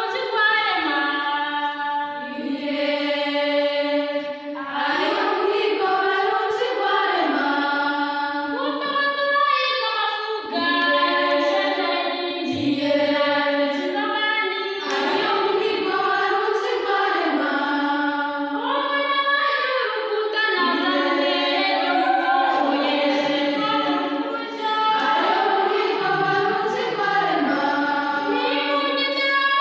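A group of girls singing a traditional African folksong together, in long held notes that move in steps from one pitch to the next.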